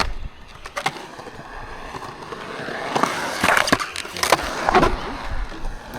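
Skateboard wheels rolling through a skatepark bowl, building up then fading away, with several sharp clacks of the board in the middle of the run.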